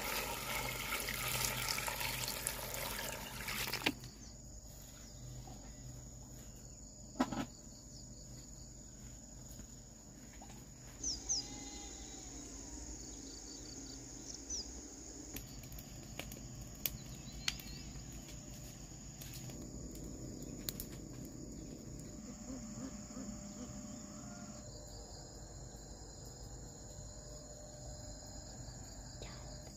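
Insects chirring in a steady high drone. For the first few seconds it sits under a louder rushing noise that cuts off suddenly, and a few light knocks and clicks come through afterwards.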